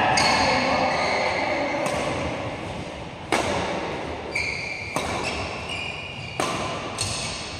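Sports shoes squeaking on a synthetic badminton court mat, with a few sharp knocks that echo in a large hall.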